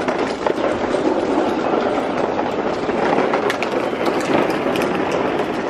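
Hard plastic wheels of a toy dump truck rolling over a rough asphalt driveway as a toddler pushes it: a steady gritty rattle with many small clicks.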